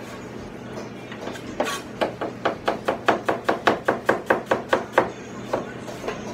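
Cleaver chopping an onion on a plastic cutting board: a fast, even run of knocks about five a second, thinning out to a few single strokes near the end.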